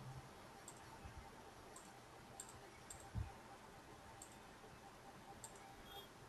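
Faint computer mouse clicks, about six scattered single clicks, with one low thump about three seconds in, over quiet room hiss.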